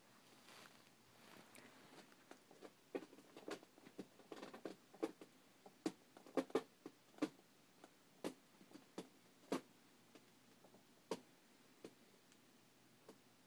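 A string of soft, irregular clicks and taps, a few a second, loudest in the middle and thinning out near the end.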